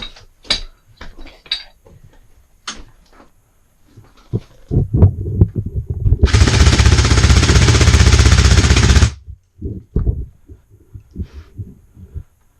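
Airsoft gun firing a long full-auto burst of about three seconds, a loud fast rattle that stops abruptly. Scattered knocks and clicks of movement come before and after it.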